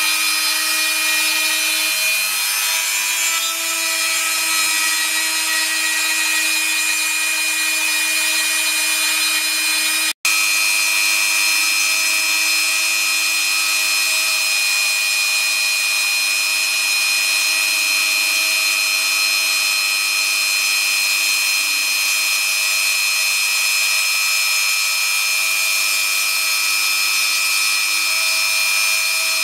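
Biltema rotary tool running as the spindle of a 3D-printed CNC router, milling a shape out of foam board with a steady whine. The sound cuts out for an instant about ten seconds in, then carries on as before.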